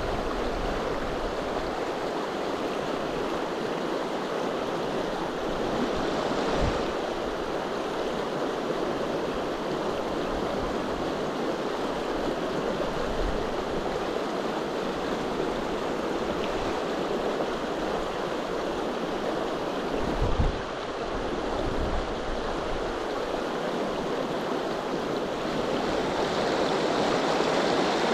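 River rapids rushing steadily, a constant wash of water noise, with a brief low bump about twenty seconds in.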